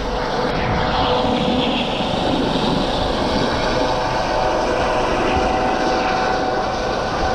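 Propeller aircraft flying low overhead, its engines and propellers giving a steady drone with a few held tones.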